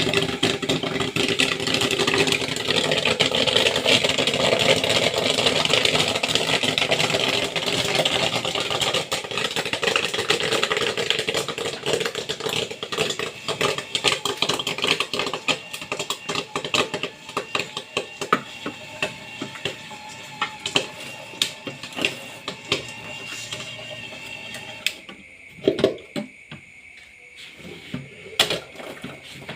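Corn popping in a 12-volt popcorn machine over its running motor: dense, rapid popping at first that thins out to a few scattered pops near the end as the batch finishes.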